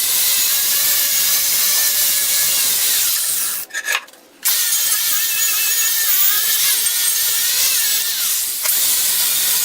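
Power wire wheel scrubbing the metal of a mill vise clean: a steady, harsh, high hiss with a faint wavering whine, stopping for about a second partway through and then going on.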